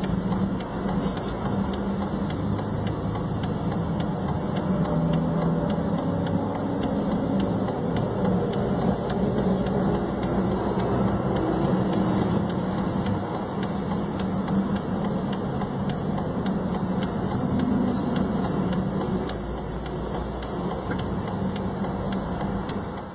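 Vehicle engine idling steadily, a continuous low hum.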